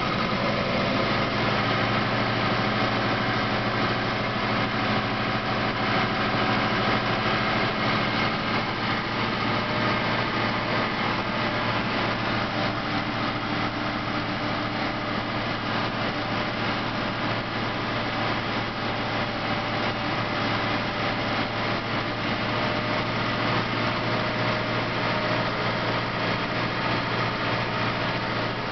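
Deutz DX 4.70 Turbo tractor's air-cooled four-cylinder turbo diesel running steadily under way on the road, heard from inside the cab.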